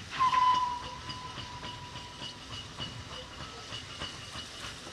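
Steam locomotive's whistle blown once, a steady tone of about two seconds beginning just after the start. After it, the approaching engine's faint, regular exhaust beat.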